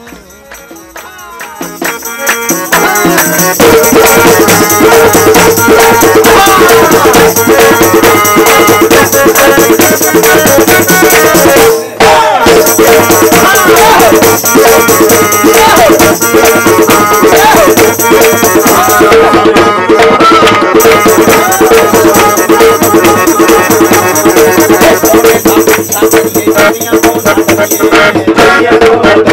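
Upbeat Punjabi devotional music, a Sai bhajan, with a steady beat and rattling percussion. It swells up over the first three seconds and drops out for a moment about twelve seconds in.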